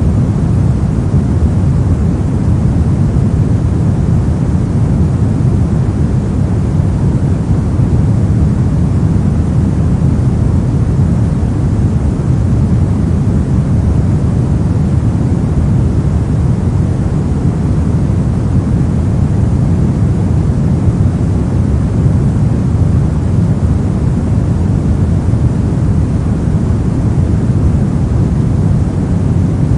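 Steady synthetic pink noise, a constant even hiss-and-rumble heaviest in the low end, unchanging throughout.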